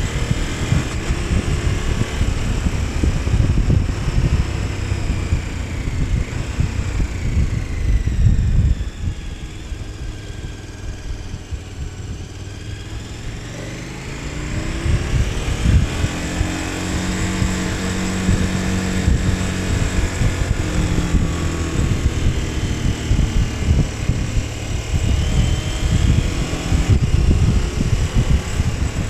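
KTM 1290 Super Adventure S's V-twin engine riding under load; about nine seconds in the throttle closes and the engine speed falls away, and from about fourteen seconds it picks up and accelerates again.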